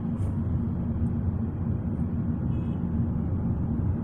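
Steady low rumble of a car's engine and road noise heard from inside the cabin while driving in traffic.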